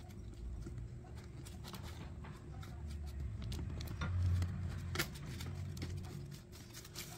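Light plastic clicks, taps and handling noise from a phone mount being fitted and tightened onto a helmet mount, with a low rubbing rumble that peaks about four seconds in.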